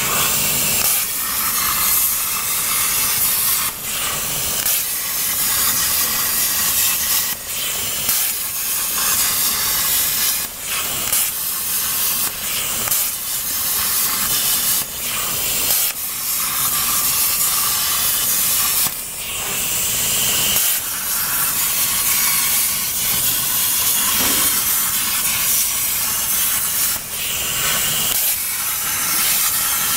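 CNC plasma cutter's torch arc cutting 2 mm galvanized steel sheet: a loud, steady hiss that drops out briefly every few seconds, several times over.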